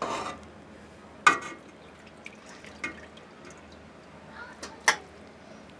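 Kitchen work at a pot of chicken broth: a few sharp clinks of utensils against cookware, the loudest about a second in and near the end, with dripping and splashing liquid.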